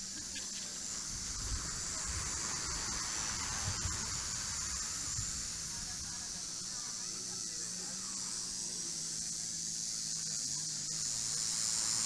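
Steady high-pitched buzzing chorus of cicadas in dry forest, with a few low thuds of footsteps about a second and a half and four seconds in, and a faint low hum underneath.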